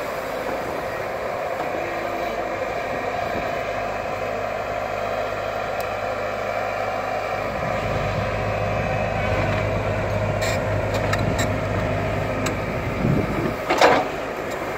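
Excavator's diesel engine running steadily and working harder about eight seconds in, with a few light knocks and a brief loud clatter near the end.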